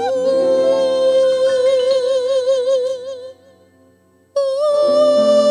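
A woman singing a solo into a microphone, holding a long note with vibrato over sustained instrumental chords. The note and chords fade out about three seconds in, there is a pause of about a second, then she comes in on a new held note with the accompaniment.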